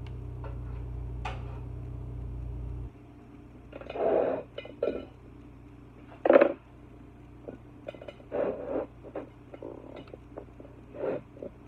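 Kitchen food-prep handling: scattered short rustles and knocks as greens and a plate of raw meat are handled on the counter, the loudest a little over six seconds in. A low steady hum cuts off about three seconds in.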